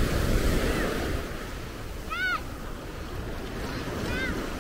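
Small waves washing onto a sandy beach, with wind on the microphone. A short, high call with an arched pitch rings out about two seconds in and again near the end.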